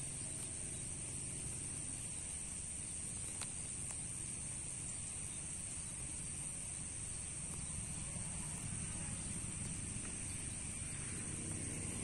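Steady high-pitched chirring of insects, with a low rumble underneath from a passenger train running in the distance, the rumble growing slightly near the end.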